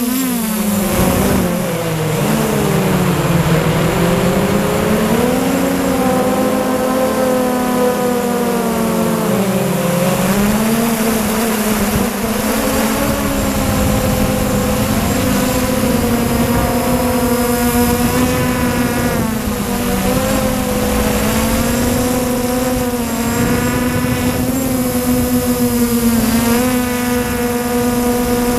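MJX Bugs 3 quadcopter's brushless motors and propellers whining in flight, heard from a camera mounted on the drone. The pitch falls sharply about a second in and again around ten seconds as the motors slow, then climbs back and holds steady, over a hiss of wind.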